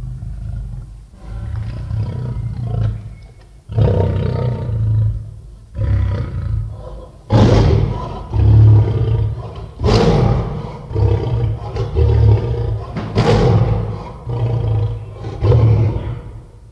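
Lion roaring: a series of deep, loud roars, coming about once a second in the second half, cutting off suddenly at the end.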